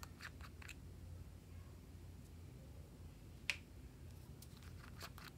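Small plastic ball-shaped container snapping open with one sharp click about three and a half seconds in, among lighter clicks of the plastic halves being handled.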